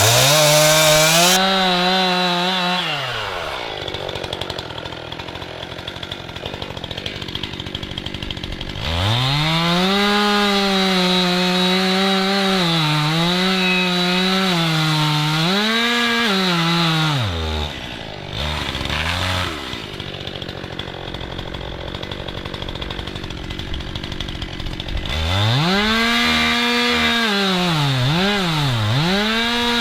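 Two-stroke chainsaw, likely a Stihl MS 261, at full throttle cutting into a hung-up tree, its pitch sagging a little under load, then dropping back to idle between cuts. Three spells at full throttle, the longest several seconds, with quick throttle blips near the end.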